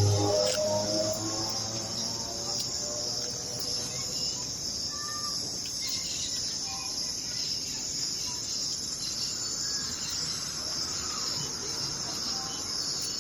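Steady, high-pitched chorus of crickets or similar insects, with a few short bird chirps scattered through it.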